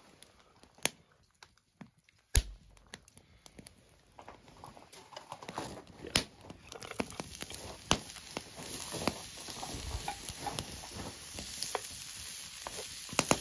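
Food frying in a hot pan over a fire, the sizzle building through the second half, with sharp knocks and clicks, the loudest about two seconds in.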